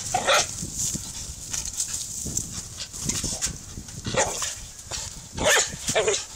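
Border collie barking in short, separate barks: one at the start, another about four seconds in, and two more near the end.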